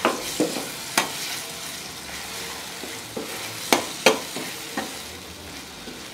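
Ground shallot, garlic and red chili paste sizzling in hot oil as it is sautéed in a stainless steel pan, stirred with a metal spatula that clinks and scrapes against the pan now and then.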